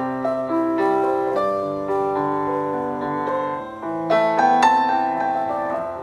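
Background piano music: a melody of single ringing notes over held low notes.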